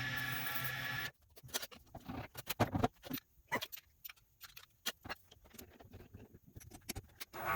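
Lathe motor running with a steady hum that cuts off about a second in, followed by scattered light clicks and taps from hand tools and the resin shift-knob blank being handled.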